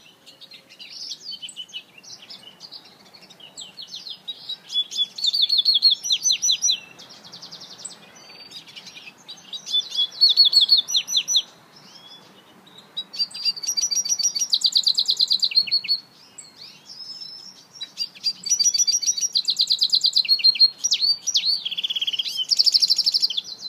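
An African citril mule (a hybrid finch) singing a black siskin-style song: about six phrases of rapid, high trills and twittering note series, each a few seconds long, with short pauses between them.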